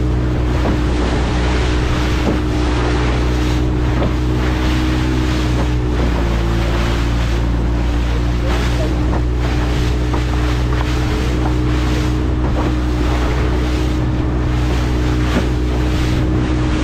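A motorboat engine running steadily with a low, even hum, under wind buffeting the microphone and the rush of water around the hull.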